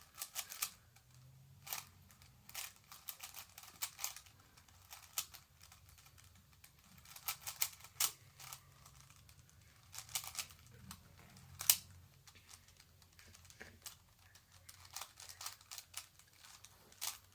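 Megaminx twisty puzzle being turned by hand: irregular, quick plastic clicks and clacks as its faces are rotated during a solve.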